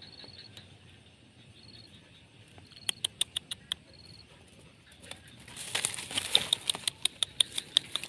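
Dry grass and weeds rustling and crackling as they are walked through: a short run of sharp crackles about three seconds in, then a louder spell of rustling with quick crackles from about five and a half seconds on.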